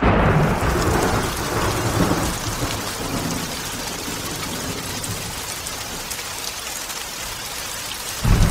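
Thunderstorm: steady heavy rain with rolling thunder, loudest in the first two seconds, and a second thunder rumble near the end.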